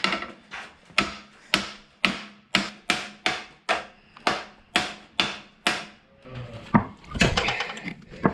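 Hammer blows on the bent metal around the leaf-spring U-bolts of a Toyota FJ40 axle, struck to straighten it back: about fifteen sharp strikes in a steady rhythm of two to three a second, stopping about six seconds in, followed by a looser clatter.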